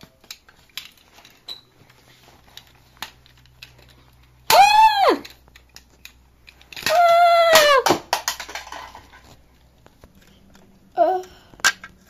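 A child's voice gives two long, drawn-out cries, each rising and then falling in pitch, about four and a half and seven seconds in. Between them come soft clicks and knocks of toys being handled.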